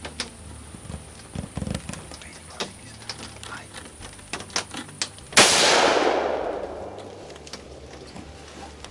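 A single hunting rifle shot about five seconds in, its report echoing and rolling away over the next two seconds. Faint scattered small ticks come before it.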